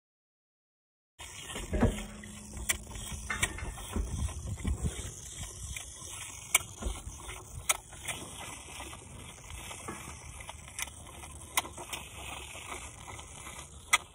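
Highland calf sucking milk from a hand-held bottle: irregular wet smacking clicks over a steady rustle, starting about a second in.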